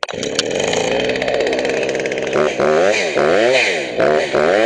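Freshly rebuilt Husqvarna 359 two-stroke chainsaw with a new cylinder, piston and non-EPA carburetor. It starts abruptly and runs steadily, then about halfway through is revved up and down repeatedly, about twice a second.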